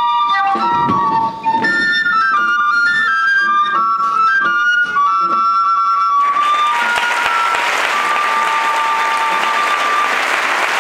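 Txistu, the Basque three-hole flute, playing a melody of quick notes; about six seconds in, applause breaks out and runs on while the flute holds a few last, longer notes.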